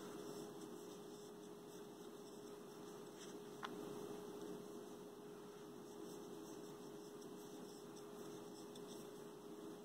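Quiet steady electrical hum, one even tone over a faint hiss, with a single small click about three and a half seconds in.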